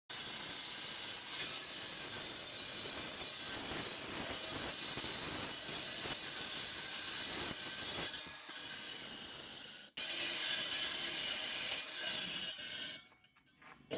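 Concrete-cutting saw blade grinding through concrete: a dense, steady grinding noise strongest in the high range. It breaks off for a moment about ten seconds in, then stops near the end.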